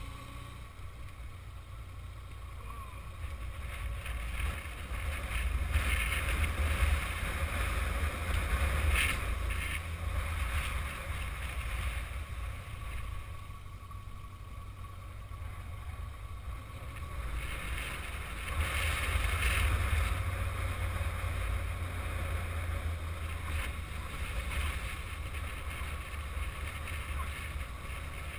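Yamaha XJ600 Diversion motorcycle under way: wind buffeting the camera microphone as a low rumble and rush, with the bike's engine and road noise beneath it. It grows louder twice, about a fifth of the way in and again about two-thirds through.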